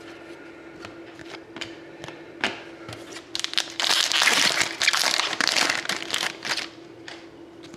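Trading-card packaging crinkling and rustling for about three seconds from around the middle, after a few light clicks as cards are handled. A faint steady hum runs underneath.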